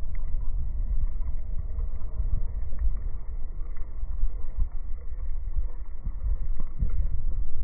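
Uneven low rumble of wind buffeting the microphone, with a few faint ticks.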